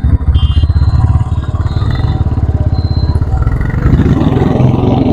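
Royal Enfield Classic 350's single-cylinder engine running under way, a steady low thumping beat that gets louder about four seconds in as it pulls harder.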